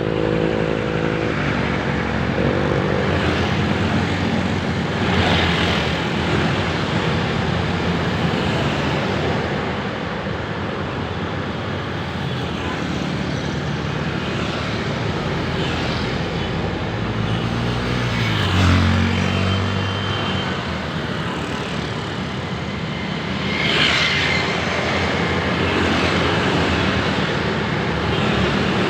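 Busy city road traffic: a steady wash of vehicle engines and tyre noise, with single vehicles swelling louder as they pass, about five seconds in and again near the end. A low engine note rises and falls about two-thirds of the way through.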